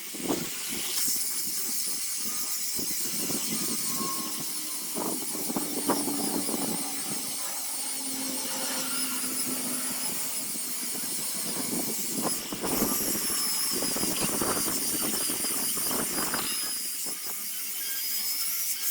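High-speed power tool working wood: a high-pitched whine that wavers as the load changes, over a steady hiss with scraping strokes.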